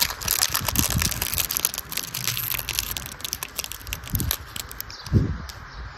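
Small clear plastic bag crinkling and crackling as fingers pull and pick at it to open it, then a single dull thump about five seconds in.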